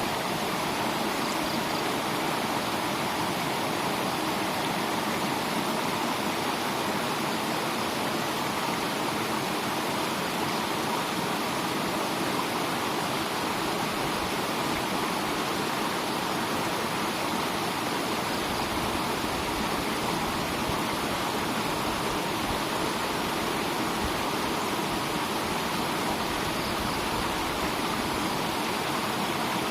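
Steady rush of running water, pouring and splashing without a break.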